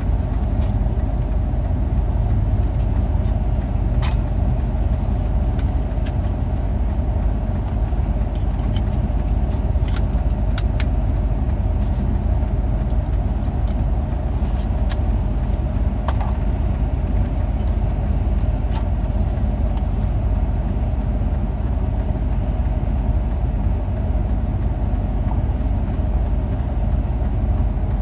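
Steady road and engine noise of a car driving, heard from inside the car, with a few faint clicks.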